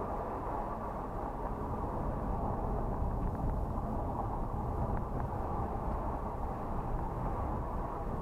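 Car driving, its engine and tyre noise heard from inside the cabin as a steady low rumble.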